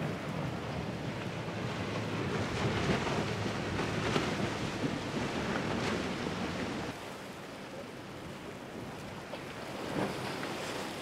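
Powerboats running at speed through choppy water: a hiss of spray and wake over a low engine drone, with wind on the microphone. The sound drops in level about seven seconds in.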